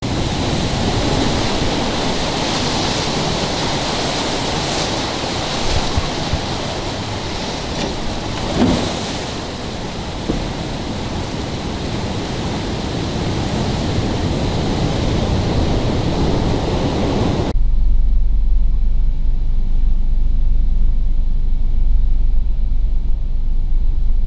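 Hurricane surf and storm-surge water rushing and foaming around beach-house pilings and through a flooded space under a house, a loud even wash with a few sharp knocks. About two-thirds of the way through it changes abruptly to strong wind buffeting the microphone, a deep rumble.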